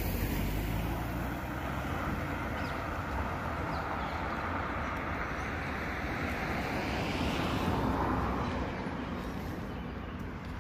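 Outdoor street traffic noise with wind on the microphone. A passing vehicle swells to a peak about eight seconds in, then fades.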